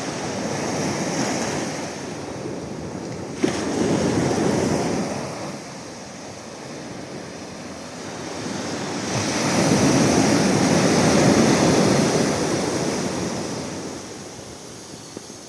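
Sea surf washing in, swelling twice, about four seconds in and again from about nine seconds on, with a brief sharp click just before the first swell.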